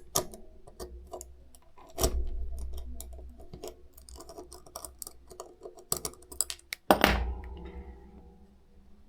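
Clicks and taps of small parts being handled as the iPod's SSD is taken out and reseated, with two louder knocks, about two seconds and about seven seconds in.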